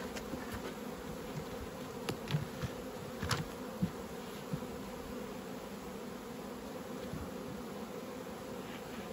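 Honeybees buzzing steadily around an opened hive, a continuous hum. A few short knocks in the first four seconds as the hive lid is set back on the box.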